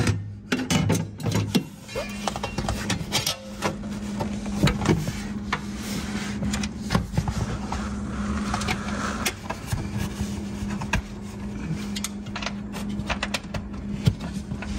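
Scattered light clicks and knocks of hand work on small metal parts: stiffener plates and nuts being fitted onto the soft top's rain rail studs, over a steady low hum.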